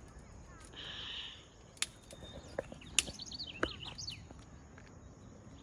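Small birds chirping in a quick run of short calls about three seconds in. A few sharp snaps or knocks, the loudest sounds here, and a brief rustle near the start.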